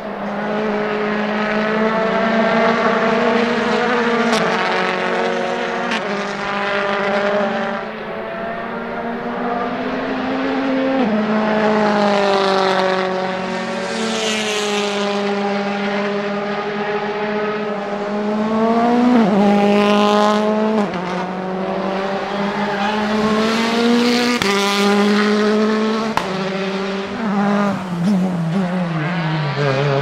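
World Rally Car engines, among them a Ford Fiesta WRC and a Hyundai i20 WRC, running hard under acceleration. The engine note climbs and then drops sharply at each of several gear changes, and falls away near the end as a car slows.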